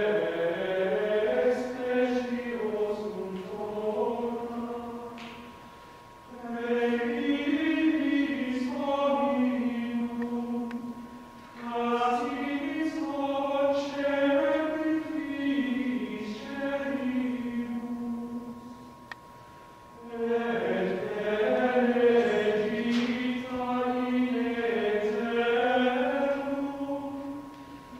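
Latin plainchant sung in unison by a group of unaccompanied voices, in long phrases with short breaks for breath between them.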